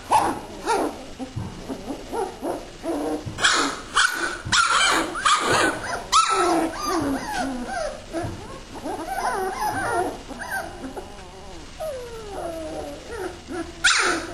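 A litter of German Shorthaired Pointer puppies whimpering and yipping, many high, sliding cries overlapping, with louder yelps clustered about four to six seconds in and again near the end.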